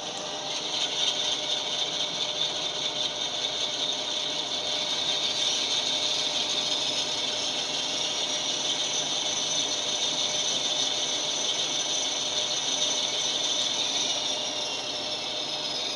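Sound decoder's diesel engine sound played through the small speaker of a Mehano Blue Tiger model locomotive, a thin, tinny running sound that resembles a British Class 47 diesel, mixed with the model's motor and gears running. It gets louder about a second in.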